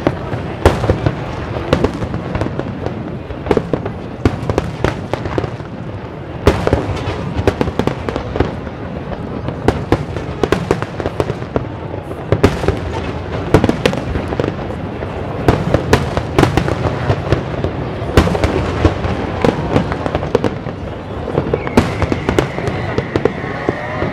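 A fireworks display going off continuously, a rapid, irregular run of sharp bangs and crackles over a constant rumble. About 22 seconds in, a steady high whistle joins.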